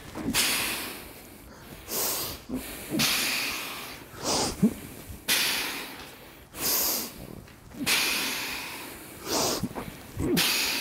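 A man breathing hard through his nose and mouth while swinging a heavy steel club, about 80 lb, overhead. Each forceful breath comes every second or so, several with a short grunt of effort.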